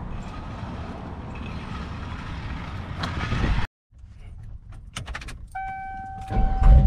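Wind and light tool noise from work under the truck, then after a cut a few key and ignition clicks and a steady warning chime. Near the end the 1993 Ford F-150 SVT Lightning's 5.8-litre V8 cranks on its newly replaced starter and starts with a sudden loud, low rumble.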